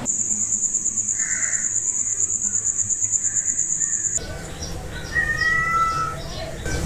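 A cricket trilling steadily in a fast pulse, about seven pulses a second. It cuts off about four seconds in, and birds calling take over, with a couple of short whistled notes.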